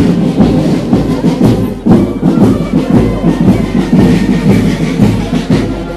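Live music recorded on location at a street rally, loud and continuous.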